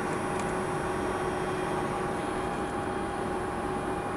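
IBM z890 mainframe's cooling blowers running steadily: an even rushing whir with two constant tones in it.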